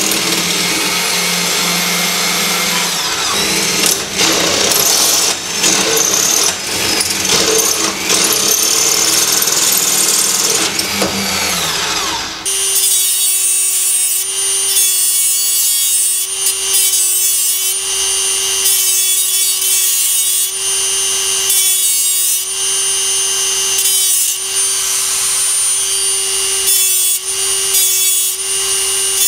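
A drill press drilling into steel stock, a rough, dense cutting noise; about twelve seconds in it gives way to a handheld rotary tool whose small abrasive wheel grinds a steel part. The rotary tool's motor runs with a steady high whine while the grinding noise comes and goes in short bursts as the wheel touches the metal.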